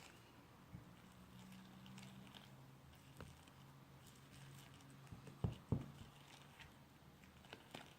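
Faint clicks and small taps of a toy knife stirring homemade slime of glue, borax water and shaving foam in a plate, with two louder knocks about five and a half seconds in. The slime is stiff and hard to stir.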